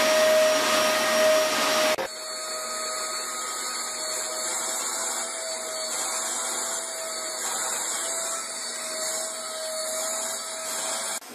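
Steady whine of an electric appliance motor, such as a vacuum cleaner, with a held tone over a rushing hiss. About two seconds in it switches abruptly to a quieter but similar motor whine whose tone wavers slightly.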